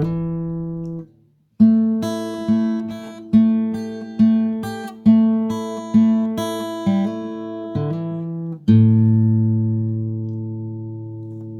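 Guitar music: a short chord, then a phrase of single plucked notes about one or two a second, ending on a long chord that rings and fades away.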